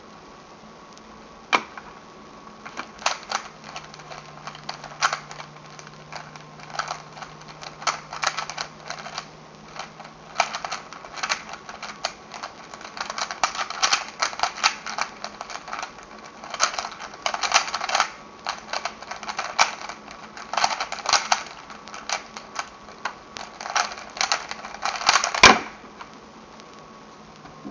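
A 3x3 Rubik's cube being turned fast during a speedsolve: rapid runs of plastic clicking and clacking from the layers, in quick bursts with short pauses between them. It ends near the end with a single sharp knock.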